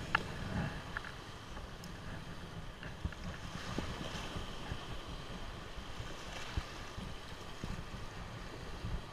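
Wind buffeting the microphone over choppy sea, with small waves washing and breaking close by; a steady rushing noise with gusty rumble and no single standout event.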